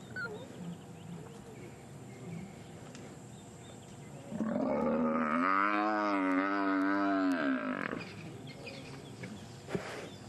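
African buffalo bellowing under a lion attack: one long, loud, wavering bawl, starting about four and a half seconds in and lasting about three and a half seconds.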